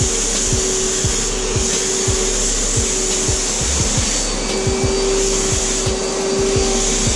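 HVLP paint-spraying turbine running steadily with a whine, driving air through the hose to the spray gun. A high airy hiss from the gun swells and drops off several times as it sprays.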